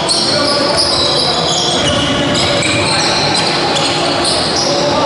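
Basketball game in play in a large sports hall: the ball bouncing on the court, short high squeaks coming and going, and voices calling out, all mixed together without a pause.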